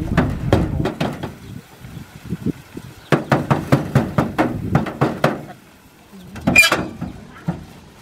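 Irregular knocks and thumps of a rice sack being handled against the metal grain outlet of a combine harvester, with one sharper, brighter clatter near the end.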